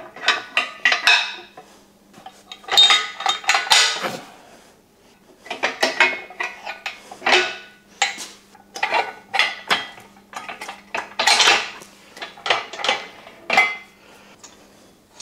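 Steel bolts, washers and nuts clinking and rattling against one another and against the steel crane base as they are handled and fitted, in repeated clusters of sharp metallic clinks that stop near the end.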